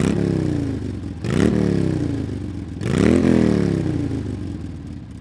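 Honda CB400N Superdream's parallel-twin engine being revved three times, each blip rising quickly and dying away slowly back toward idle.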